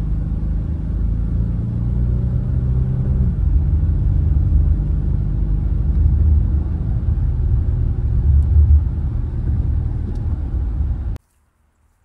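Infiniti G37's 3.7-litre V6 engine and road noise heard from inside the cabin while driving. The engine note drops in pitch about three seconds in, and the sound cuts off abruptly near the end. The engine has a random multiple-cylinder misfire, which the owner suspects is a failing ignition coil.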